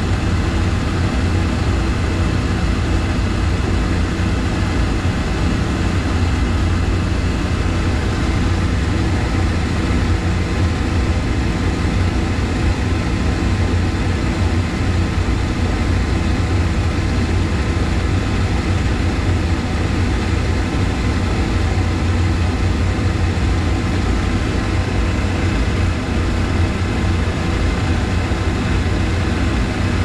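Commercial Laars Pennant hydronic boiler's combustion fan and circulating pump running: a loud, steady hum with a strong low drone and several steady tones over it. The pump sounds horrible.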